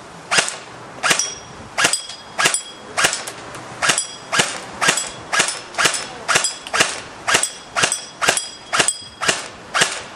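Echo 1 XK CQB airsoft electric rifle firing on semi-auto: a steady run of single sharp shots, about two a second, some eighteen in all.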